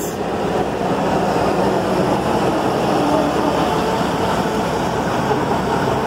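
Astec Prosizer 3600 crushing and screening plant running, with crushed recycled asphalt pouring off the end of a stacking conveyor onto a stockpile. Steady, dense mechanical noise with a few faint steady hums under it.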